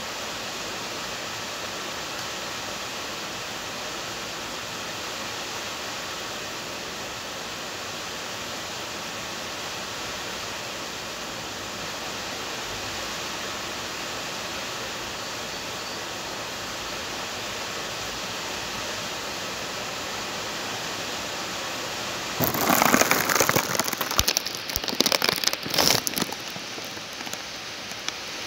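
Heavy rain falling as a steady hiss. About three quarters of the way through, loud irregular crackling and rustling bursts break in for several seconds.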